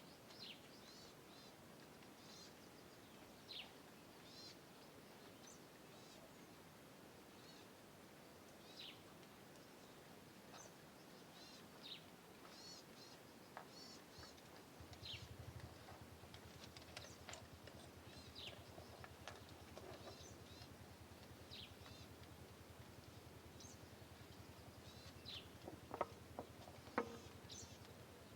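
Faint outdoor ambience with birds chirping: many short, high calls scattered throughout. A low hum comes in about halfway, and two sharp clicks near the end are the loudest sounds.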